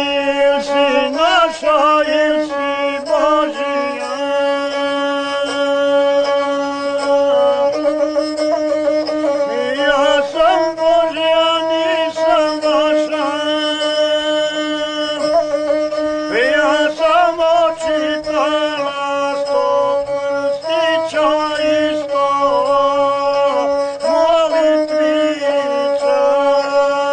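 Folk music played on a traditional instrument: a steady low note is held under a quick, ornamented melody with wavering pitch, broken now and then by short gaps and slides.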